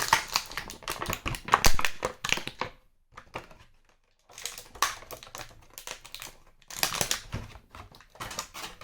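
Hard plastic clicking, tapping and crinkling as a plastic action figure and its packaging tray are handled, with a pause of about a second, three seconds in, before the clicks and rustling resume.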